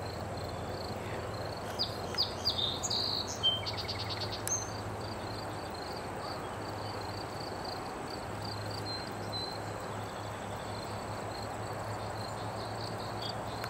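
Outdoor ambience with an insect chirring in a fast, steady pulse and a low steady hum underneath; a short flurry of high bird calls comes about two to four and a half seconds in.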